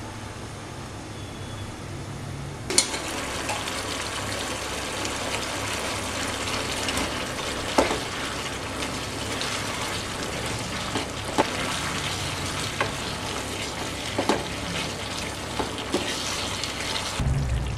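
Spaghetti being stirred with a spatula into a creamy sauce simmering in a pan: a steady crackling sizzle with a few sharp taps of the spatula against the pan. In the first few seconds, before this, a pot of spaghetti at a rolling boil gives a quieter, even bubbling.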